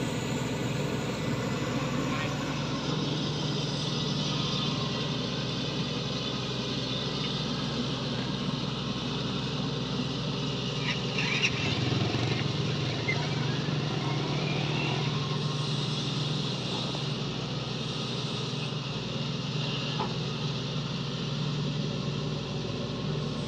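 Hydraulic excavator's diesel engine running steadily, with a few short knocks about halfway through.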